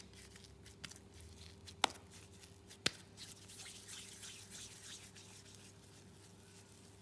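Oiled hands working puri dough in a bowl: faint soft squishing and rubbing, with two sharp clicks about two and three seconds in. A steady low hum runs underneath.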